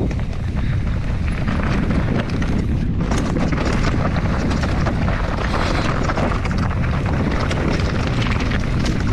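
Enduro mountain bike ridden fast down a dirt trail: a steady rush of wind on the microphone with a low rumble of tyres over rough ground, and a constant patter of small knocks and rattles from the bike.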